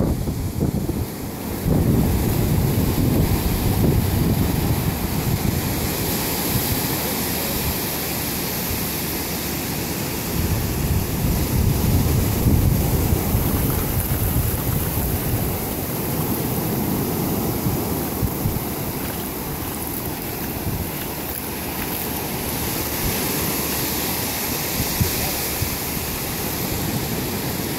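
Ocean surf breaking and washing up the beach, with wind buffeting the microphone in a low rumble.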